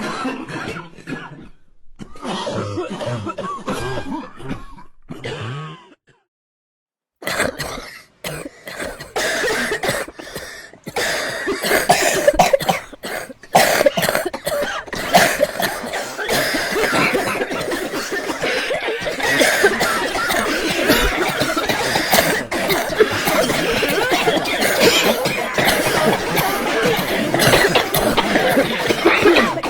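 Many people coughing and clearing their throats over one another. The coughing breaks off completely for about a second around six seconds in, then resumes denser and louder as a near-continuous mass of overlapping coughs.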